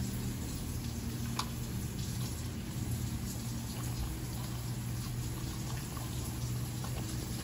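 French bulldog eating canned wet dog food from a plastic bowl: wet smacking, licking and chewing with small clicks, over a steady low hum.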